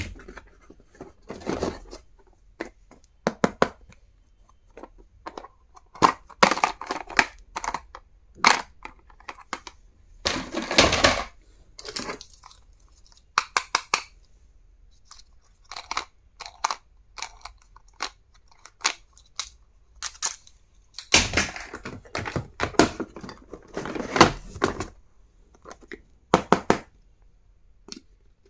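Stationery packaging being handled and opened by hand: scattered clicks, taps and rustles, with a few longer tearing or crinkling sounds, the longest lasting about a second.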